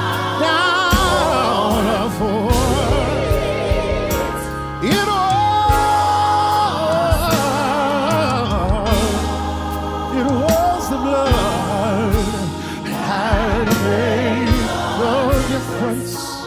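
Gospel worship song: a lead singer and backing vocalists singing with strong vibrato over keyboards. About five seconds in, one voice holds a long high note.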